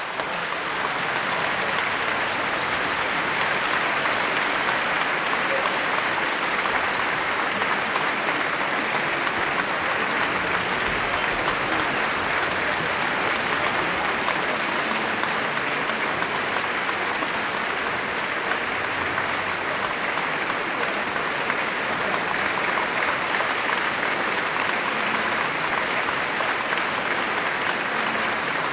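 A large audience applauding, a dense, steady clapping that holds at an even level.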